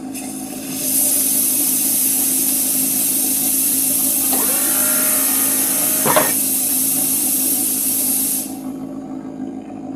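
Designed GONK power droid sound effect: a steady low mechanical hum with a long hiss starting about a second in and cutting off near the end, with a few short gliding electronic tones in the middle and a sharp zap about six seconds in.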